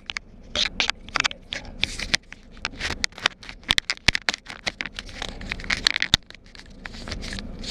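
Handling noise close to the microphone: a rapid, irregular run of clicks, rustles and scrapes.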